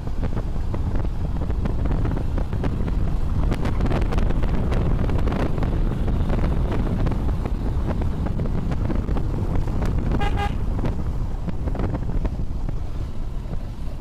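Wind buffeting the microphone of a moving motorbike, a steady low rumble, with one short horn toot about ten seconds in.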